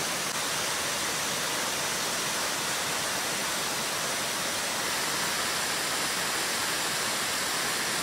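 Cascading mountain waterfall: a steady rush of falling water.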